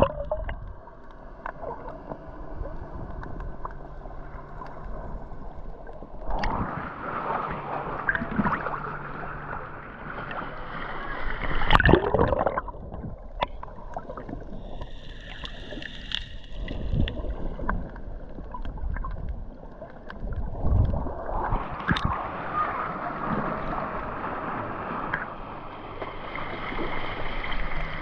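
Underwater water noise picked up through an action camera's waterproof housing while snorkelling: muffled sloshing and gurgling that swells and fades, with a louder surge about twelve seconds in.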